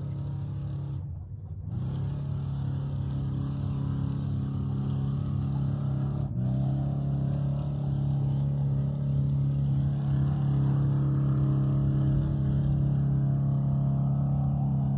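An engine running at a steady, unchanging pitch, slowly getting louder, with a brief dropout about a second in and another short break near the middle.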